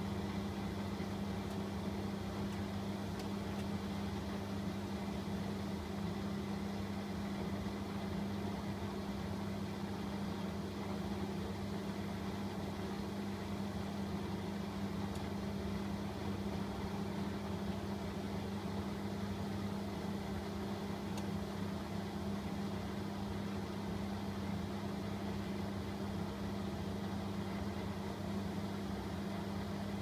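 Bosch Maxx WFO3274EX front-loading washing machine running with water in the drum, its motor tumbling the wet laundry with a steady low hum.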